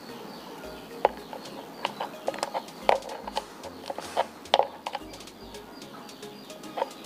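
Irregular sharp clicks and light metallic knocks of small brass hose fittings and a quick-release coupler being handled and fitted together.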